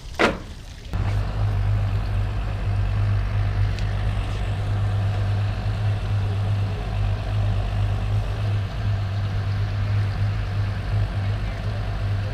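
A motor running steadily with a low hum, starting abruptly about a second in, just after a single sharp click.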